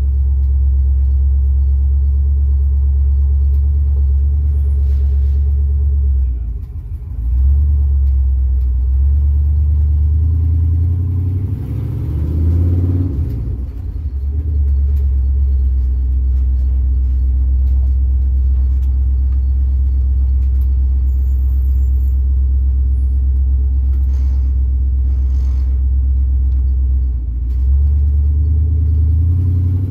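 The 1967 Clark Cortez motorhome's swapped-in 5.3 LS V8 running under way, heard from inside the cab as a steady deep drone. The engine note eases off briefly twice and rises and falls once about halfway through.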